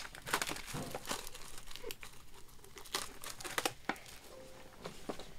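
Plastic shrink-wrap being torn and crumpled off a cardboard trading-card box: an irregular run of crinkles and crackles.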